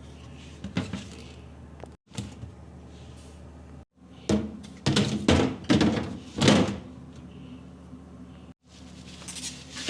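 Household items being handled and set down in a refrigerator: a few separate knocks, then a busy run of knocks and clatters in the middle.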